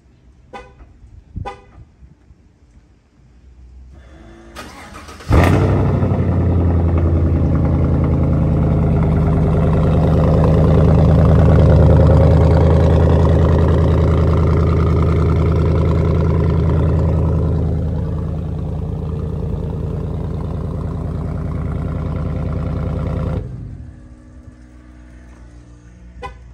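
Chevrolet Silverado cold start through a straight-piped cat-back exhaust. Two light clicks come first, then a short crank before the engine catches with a sharp flare about five seconds in. It runs at a loud, fast cold idle that settles lower about 18 seconds in, and the sound cuts off abruptly a few seconds before the end.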